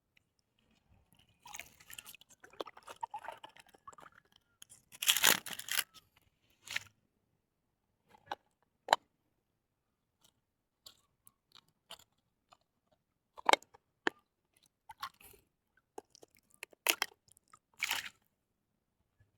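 Close rustling and crunching, then scattered single sharp clicks and knocks at uneven intervals, the sound of things being handled near the microphone.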